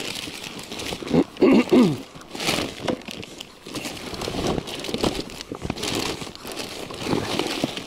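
Irregular rustling and crackling, with a short voice about a second and a half in.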